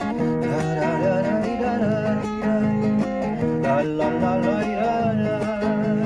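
Acoustic guitar strummed steadily, with a man singing long, wavering held notes over it.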